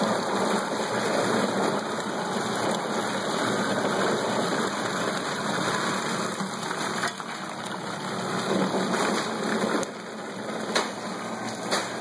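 A 1¼ horsepower garbage disposal running steadily, churning and circulating margarita mix and ice in a cooler with a sloshing, splashing rush of liquid. A few sharp knocks come near the end.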